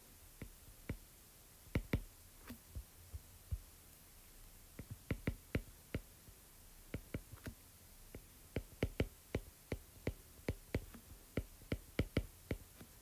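Stylus tapping and scratching on a drawing tablet while handwriting: an irregular run of short quiet clicks, some in quick pairs or clusters, thickest in the second half.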